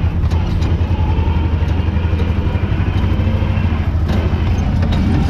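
Tractor diesel engine running steadily under load while pulling a hay rake, heard from inside the cab, with a low, even drone and a few faint rattling clicks.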